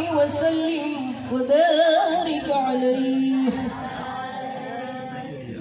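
A group of women singing a shalawat, an Islamic devotional song in praise of the Prophet Muhammad, with long held, ornamented notes.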